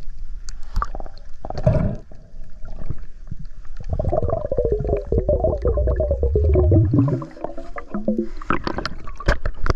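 Muffled underwater sound on a diving camera: scattered clicks and knocks, and about four seconds in a long, low, gurgling rumble with a wavering pitch that slides downward, lasting about three seconds.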